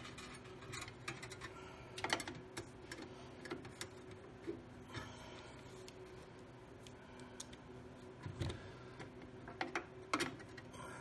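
Scattered light clicks and taps of metal parts being handled as a perforated steel screen is fitted back onto a sheet-metal fireplace blower housing, with the sharpest knocks about two seconds in and again near the end.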